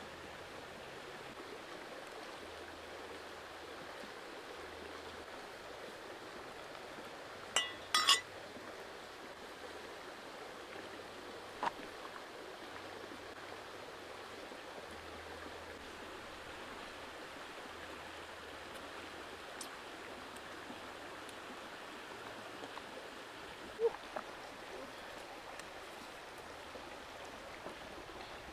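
Steady rush of a flowing stream, broken by a few sharp clinks; the loudest is a quick cluster about a third of the way in.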